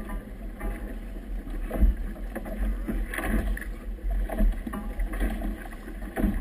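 Wind buffeting the microphone of a boat-mounted camera in a 17–20 knot breeze, a constant low rumble. Over it come irregular flutters and slaps from a flag whipping on its staff close by, the loudest about two seconds in and again near the end.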